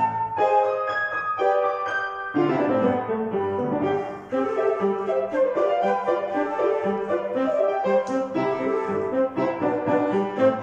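Piano playing a polka, a melody over a steady bass line, without a break.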